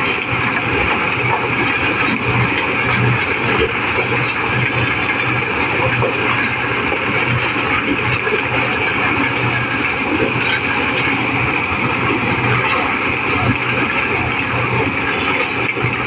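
Diesel-powered mobile corn sheller running steadily under load, its engine and threshing drum working as unhusked corn cobs are fed in and shelled.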